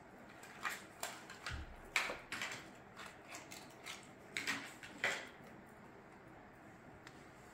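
Cats eating wet food from bowls: scattered, irregular clicks and smacks of chewing and licking, the sharpest about 2 s and 5 s in, dying down after about five and a half seconds.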